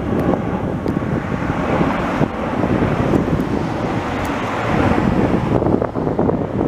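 Wind buffeting the microphone: a loud, choppy rumble.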